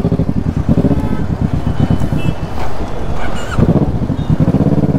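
Kawasaki inline-four sportbike engine running loud at low revs, its exhaust pulsing rapidly, with the note picking up briefly about three and a half seconds in.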